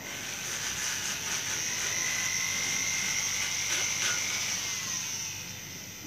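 Small handheld rotary carving tool running at high speed with a high whine, its bit grinding away the cuts under a carved bird head; the whine winds down just before the end.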